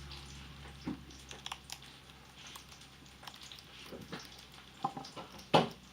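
Amazon parrot biting into and crunching a brussels sprout: irregular crisp crunches and clicks, the loudest one about five and a half seconds in.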